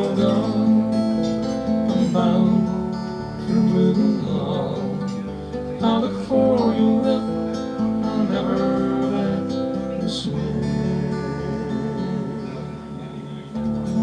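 Acoustic guitar strummed with a man singing over it, the song's close. From about ten seconds in, a final chord is left ringing and slowly fades.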